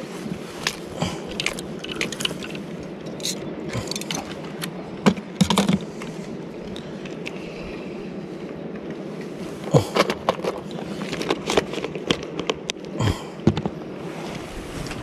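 Scattered clicks, knocks and scrapes from handling, bunched about five seconds in and again from about ten seconds, over a steady background hiss.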